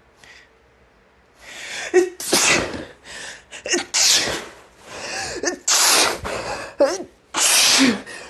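A person's allergy sneezing fit: after a moment's quiet, a drawn-in breath and then about four loud sneezes in quick succession, with short gasping breaths between them.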